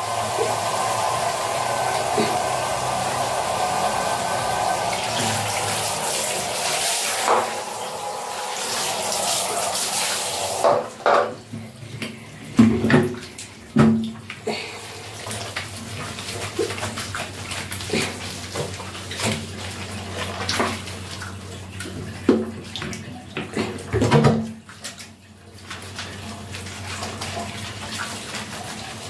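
Water running from a hand-held shower for about ten seconds, then cut off; after that, hands rubbing shampoo into a wet dog's coat, with small splashes and knocks on the tiled floor.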